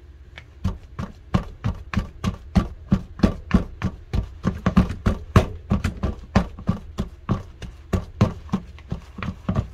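A black plastic utensil knocking and scraping against the bowl while stirring and mashing crumbly pumpkin and rice-flour dough, a steady run of taps about three a second.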